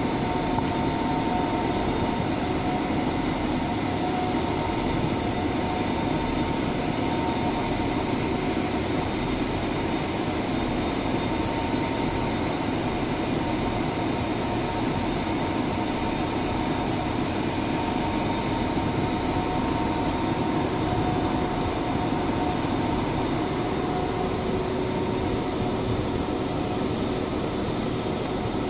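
Diesel trains idling at the platforms: a steady mechanical drone with a few constant tones, unchanging throughout.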